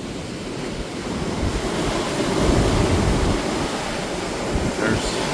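Ocean surf washing in, with wind buffeting the microphone; the surf swells louder about a second in.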